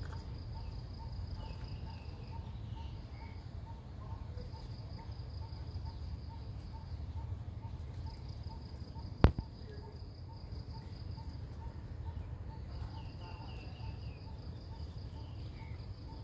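Insects chirping outdoors: a high thin trill that comes and goes, with a regular pulsing chirp about twice a second over a steady low rumble. One sharp click about nine seconds in is the loudest sound.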